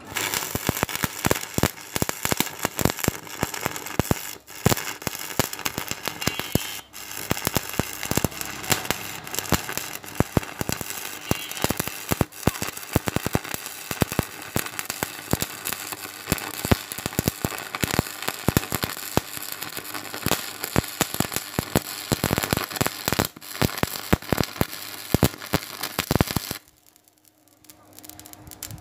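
Stick-welding arc from a 6013 electrode on steel plate, crackling and popping steadily as the bead is run. It cuts off abruptly near the end when the arc is broken.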